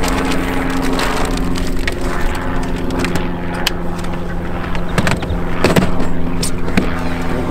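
Boat motor running steadily with a low hum, with a few sharp clicks and knocks over it in the second half.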